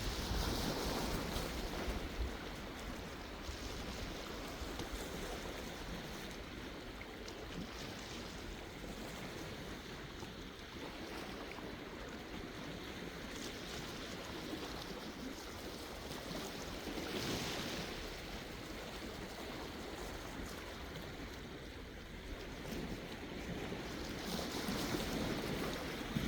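Sea waves washing in, a steady surf hiss that swells about a second in, again past the middle and near the end. Some wind rumbles on the microphone.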